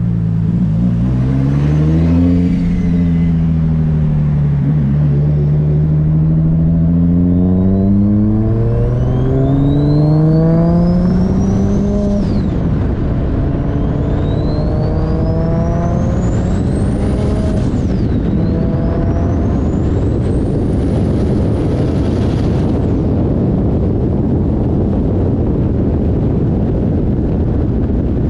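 Turbocharged RB25 inline-six in a 240SX accelerating hard, its engine note rising through the gears. A Garrett GT3076R turbo spools with a high whistle that climbs in pitch three times, each cutting off sharply at a shift or lift. Near the end this gives way to steady wind and road noise.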